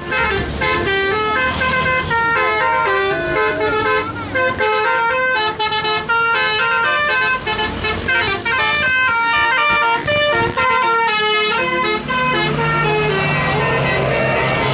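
Bus 'telolet basuri' musical air horn playing a fast tune of short, stepped notes, loud and without a break.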